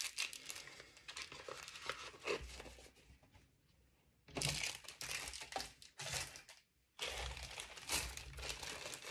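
Clear plastic jewelry bags crinkling as they are handled and opened, in irregular crackly runs that pause around three seconds in and cut out briefly near six and a half seconds.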